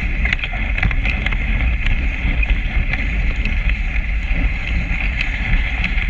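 Dog sled runners hissing steadily over packed snow while the huskies pull, with a low rumble of wind on the microphone and scattered small knocks and clicks from the sled.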